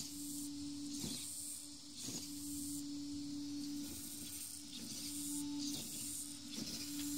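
RC drift car's steering servo whirring in short bursts about once a second as the steering is swung back and forth, over a steady electrical hum.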